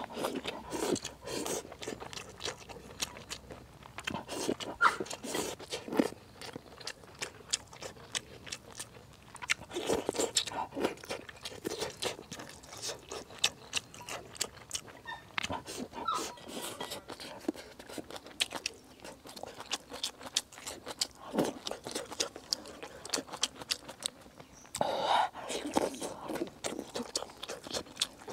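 Eating sounds: wooden chopsticks clicking and scraping against a ceramic rice bowl as rice is shovelled into the mouth and chewed. There are many sharp little clicks, with a louder stretch about ten seconds in and another near the end.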